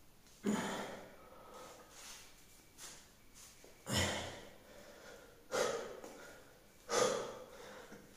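A man's heavy breathing while doing push-ups: four sharp, forceful exhales that each tail off quickly, the last three about a second and a half apart, with softer breaths between.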